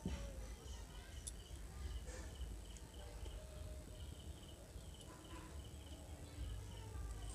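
An insect chirping: short, high chirps repeating about three times a second, often in pairs, over a faint low rumble.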